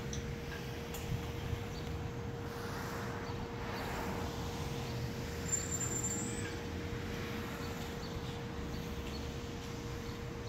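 Outdoor traffic ambience: a passing vehicle swells and fades about three to six seconds in, over a low rumble and a steady faint hum.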